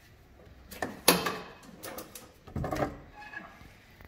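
Clunks and scraping of a loose alternator knocking against metal parts as it is lifted out of the engine bay, with a sharp knock about a second in and another short clatter near three seconds.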